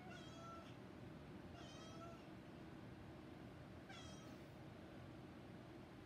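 Domestic orange cat giving three short meows about two seconds apart, faint over a low room hum, as it watches something out of reach above it.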